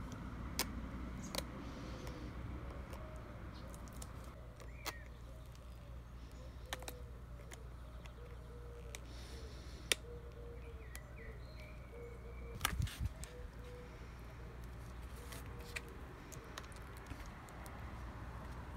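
Pliers turning a steel nut and washer down a threaded rod to clamp a glued stack of wood and leather handle pieces: scattered sharp metal clicks, with a run of short repeated chirp-like notes through the middle over a steady low hum.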